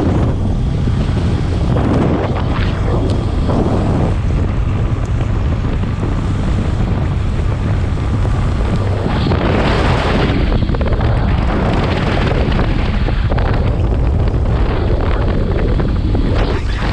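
Heavy wind noise buffeting the microphone on a moving motorcycle, over the low, steady hum of its engine. The gusts swell and ease every second or two.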